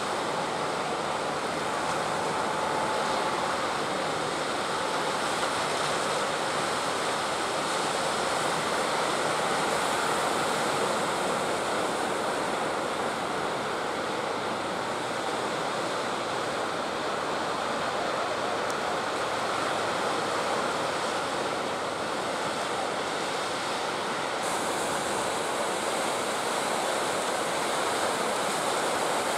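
Surf and breaking waves: a steady rush of sea water.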